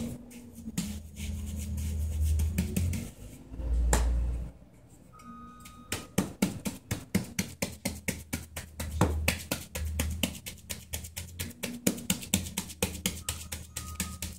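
A wooden hand tamper knocking rapidly on wet concrete in a steel block mold, about three to four blows a second, starting about six seconds in, compacting the fill. Before that, concrete is scooped and dropped into the mold, with one loud thud about four seconds in. Background music with steady low notes plays underneath.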